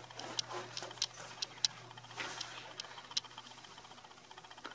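A few light clicks and taps with faint rustling, most of them in the first three seconds, over a faint steady low hum. The handling of belongings in a bag would make these sounds.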